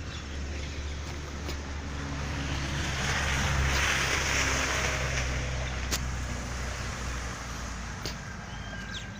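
A motor vehicle going past, its engine hum and road noise growing louder to a peak about four seconds in, then fading.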